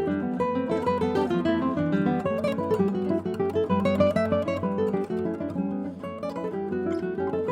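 Classical guitar duo playing a composed piece: many plucked notes and chords moving continuously.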